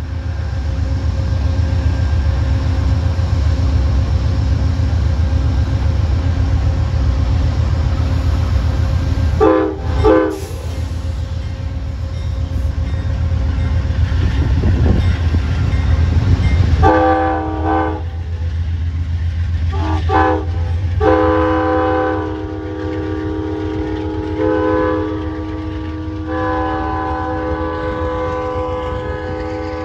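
Amtrak GE P42DC diesel locomotive and passenger train rolling by with a heavy, steady rumble, with two short blasts of a K5LA five-chime horn about ten seconds in. From about seventeen seconds in the horn sounds again in a long run of chords, quilled with short breaks and swells in loudness.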